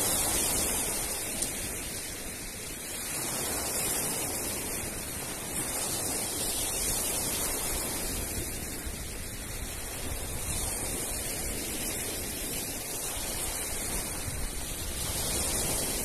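Black Sea surf breaking and washing over a pebble beach, a steady rush that swells and eases every few seconds.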